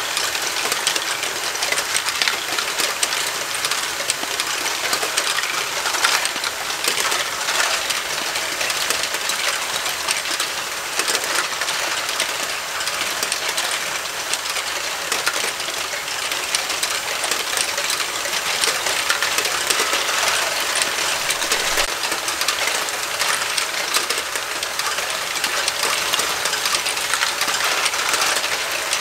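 Lego Great Ball Contraption modules running: small plastic balls clatter and rattle through the lifts and tracks in a continuous stream of clicks, over the steady whir of Lego motors.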